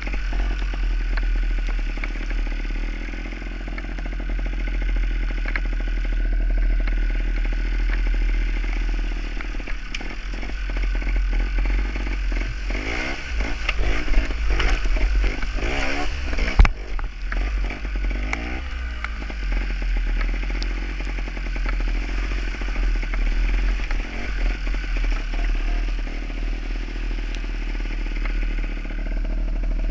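Gas Gas trials motorcycle's two-stroke engine running under way, revving up and down repeatedly through the middle stretch. A single sharp knock sounds about halfway through.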